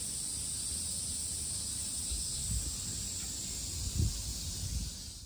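Cicadas droning in a steady, high, continuous hiss from the trees, with a few low rumbles of wind on the microphone, the loudest about four seconds in.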